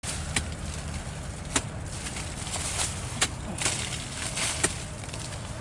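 Machete blade chopping into the hard, dried-earth crust of a termite mound: five sharp strikes, roughly one a second, over a steady hiss.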